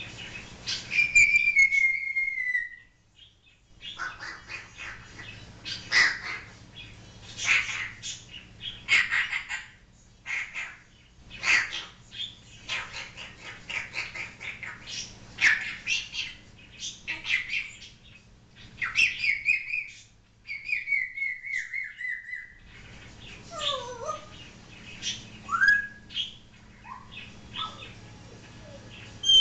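African grey parrot calling in a long run of short harsh squawks and clicks, broken by whistles that glide down in pitch and quick rising and falling whistled notes.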